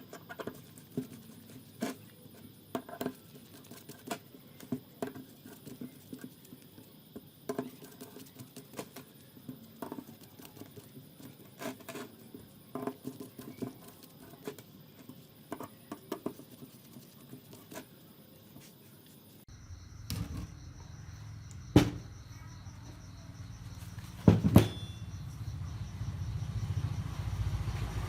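Irregular light clicks and taps of hand work, one or two a second. About two-thirds of the way through, the sound cuts to a low steady rumble, with two sharp knocks a few seconds apart.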